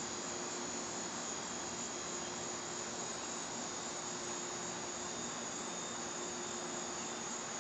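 Steady high-pitched chorus of insects, an even unbroken drone.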